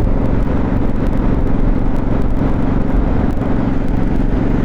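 Motorcycle engine running at a steady road speed, with wind rumble on the rider's lavalier mic.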